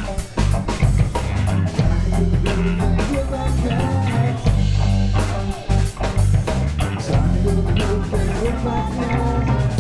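Live rock band playing an instrumental passage: electric guitar lead over bass guitar and a drum kit with steady, dense drum hits.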